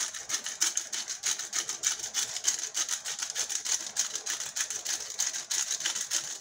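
Hand-twisted grinder-top bottle of five-peppercorn mix grinding pepper: a rapid, even run of crunching clicks, several a second.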